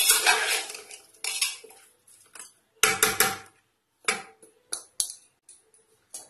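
Metal slotted spoon scraping and clanking against the inside of a pressure cooker while mixing raw mutton with onions, tomatoes and spices. A busy run of scraping comes first, then a scatter of separate clinks and knocks.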